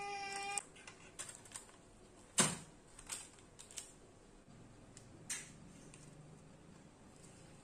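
Metal baking tray holding aluminium foil cups set down on a wire cooling rack with one sharp clack about two and a half seconds in, followed by a few light taps and clicks as the foil cups are handled. A brief squeaky tone cuts off about half a second in.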